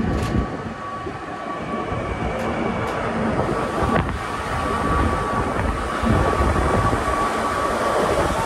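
Mountain passenger train running, a steady rumble of wheels on rails with a thin steady whine, and wind rushing past the open window. A single click sounds about four seconds in.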